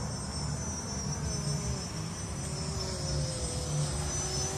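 Distant E-flite T-34 Mentor RC plane's electric motor and propeller droning in flight, its pitch sliding slightly lower about halfway through and then holding. Steady cricket trilling and a low rumble run underneath.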